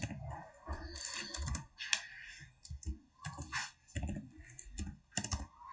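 Computer keyboard being typed on: irregular key clicks as a number is entered, with a quick run of taps near the end.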